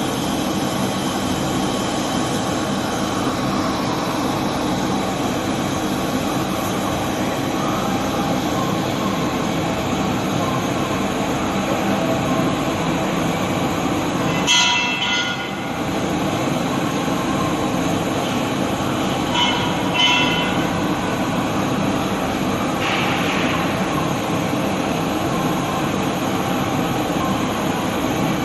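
TIG welding arc on a steel pipe in the horizontal 2G position: a steady hiss with argon shielding gas flowing. Short changes come about halfway through and again a few seconds later.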